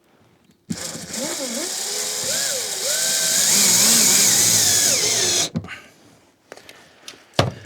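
Cordless drill-driver running for about five seconds, its whine wavering up and down in pitch as it drives a screw. A sharp knock comes near the end.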